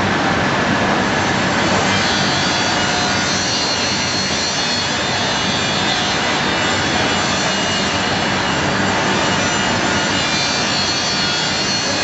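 Steady workshop machinery noise, a loud, even rushing sound without distinct strokes or pauses.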